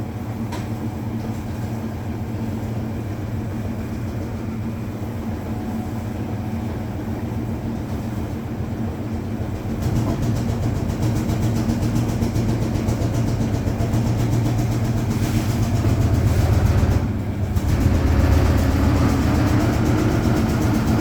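Hoover Automatic 820 washing machine spinning its load on the spin cycle: a steady mechanical hum and low rumble. It grows louder about halfway through, dips briefly, then picks up again near the end.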